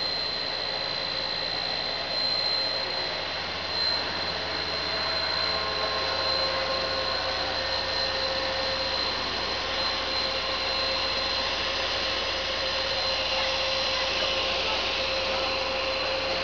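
HDPE plastic pipe extrusion line running: a steady machine drone with a constant high whine over it.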